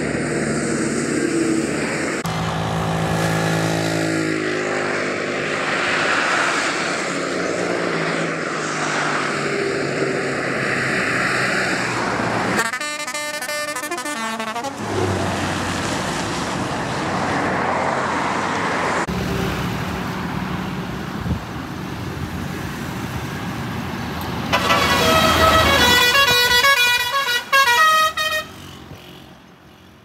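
Pakistani buses and a decorated truck passing on a highway, engines and tyres running, with multi-note pressure horns sounding short tunes. One sounds about 13 seconds in, and a louder one of stepping notes plays near the end.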